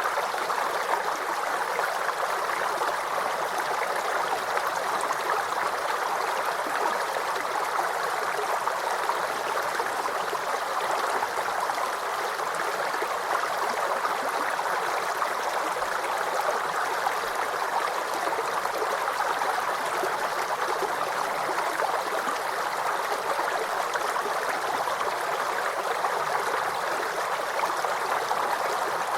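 Shallow creek babbling and gurgling over stones, a steady rush of running water with no breaks.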